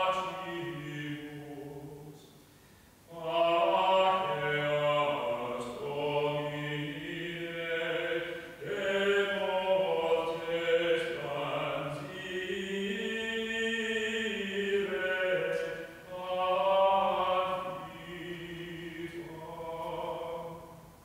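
Unaccompanied sung chant in slow, held phrases, with a short pause about two to three seconds in.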